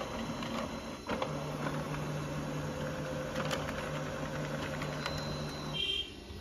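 Brother DCP-L2520D laser printer running as it prints a two-sided copy: a steady low hum with a few faint clicks, which stops shortly before the end as the page is delivered to the output tray.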